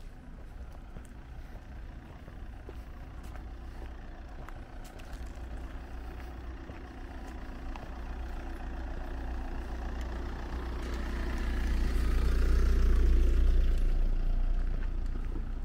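A motor vehicle approaching and passing by. Its engine and tyre noise build slowly to a peak about three-quarters of the way through, then fade.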